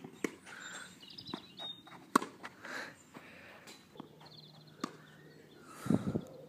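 Tennis balls struck with a racket: several sharp pops, the loudest about two seconds in, with fainter taps between. A short low rumble comes near the end.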